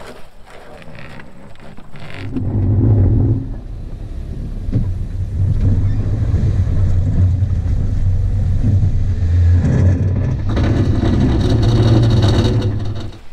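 Kia Sportage's engine running, heard close up from its hood. It comes in about two seconds in and gets louder for a moment, then runs steadily, swells again for a couple of seconds near the end and cuts off suddenly.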